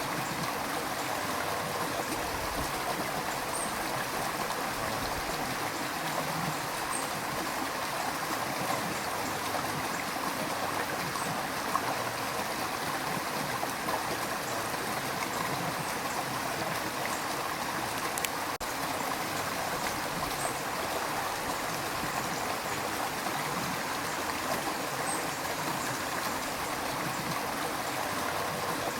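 A river's rushing water: a steady, even rush with light gurgling.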